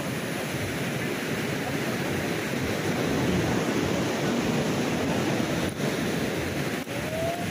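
Swollen, fast-flowing floodwater of a mountain river rushing over boulders in a steady, even wash of water noise, with two brief breaks near the end.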